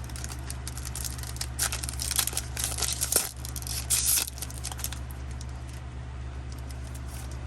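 Foil wrapper of a Pokémon booster pack being torn open and crinkled, a dense run of crackling and tearing through the first half, then only light handling. A steady low hum runs underneath.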